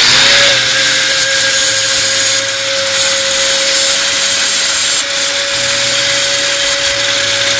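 Electric angle grinder running at a steady high whine, its disc grinding the end of a 5 mm stainless-steel rod to a point with a constant hiss of metal on the abrasive. The pitch settles in the first half second as the disc comes up to speed.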